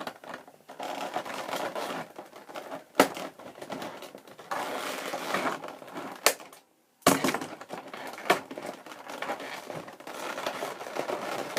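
Packaging being handled and crinkled during unboxing, a continuous crackly rustle broken by a few sharp clicks. There is a brief gap of silence a little past halfway.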